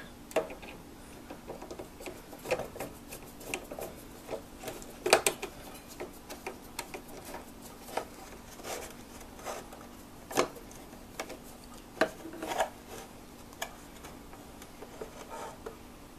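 Screwdriver turning screws into the plastic housing of a Singer Graflex Study Mate II filmstrip viewer: irregular small clicks, scrapes and knocks of the tool and the case, with a few sharper knocks, the first about five seconds in. A faint steady hum runs underneath.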